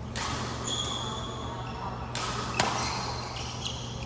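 Badminton play in a large hall: short high squeaks, most likely shoes on the court, and one sharp racket strike on the shuttlecock about two and a half seconds in.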